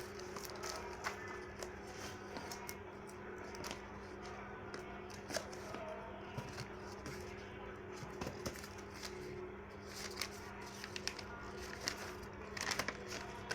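Packaging being handled and opened: scattered clicks and crinkles, with a quick cluster of clicks near the end, over a steady low hum.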